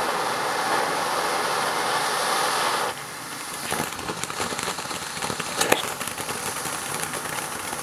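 Shiny Star SH3005 ground fountain firework spraying sparks with a steady, dense hiss that drops away abruptly about three seconds in. Crackling and scattered pops follow as the fountain moves into its crackling effects, with one sharper pop near the six-second mark.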